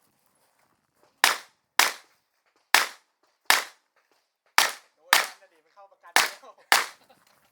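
Revolver fired in practical-shooting competition: eight sharp shots, mostly in quick pairs about half a second apart, with short pauses between pairs.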